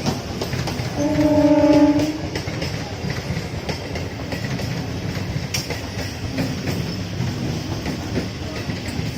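Moving train rumbling and clattering over the rail joints, with one horn blast lasting about a second, starting about a second in.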